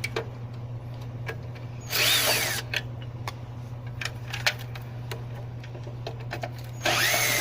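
Power drill-driver running in two short bursts, about two seconds in and again near the end, each with a whine that rises and falls as it backs out the screws holding the old timer's step-down transformer. Small clicks and taps of parts come between the bursts, over a steady low hum.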